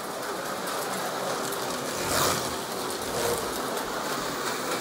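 Carrera Digital slot cars running on the track: a steady whirring hiss from their small electric motors and tyres, with one louder whoosh about two seconds in.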